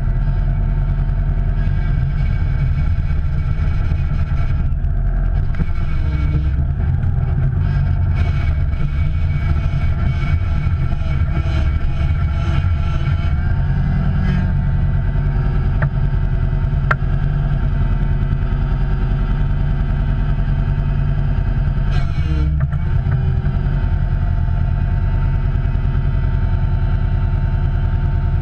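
A vehicle engine running steadily with a low hum, briefly dropping out and picking up again about three-quarters of the way through.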